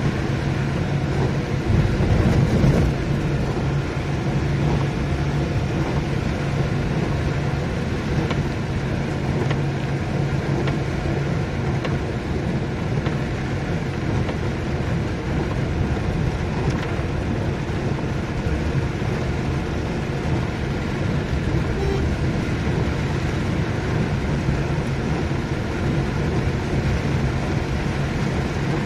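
Vehicle engine running with a steady low hum, mixed with the hiss of heavy rain and wet tyres on the road, heard from inside the moving vehicle. There is a louder surge about two seconds in.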